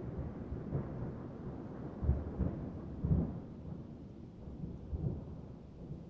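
Thunder rolling in low rumbling swells, strongest about two and three seconds in with another near five seconds, then dying away, over steady rain on a car roof.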